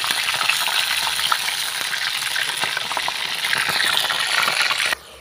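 A piece of chicken breast frying in hot oil in a wok: steady sizzling with small crackling pops. It cuts off abruptly near the end.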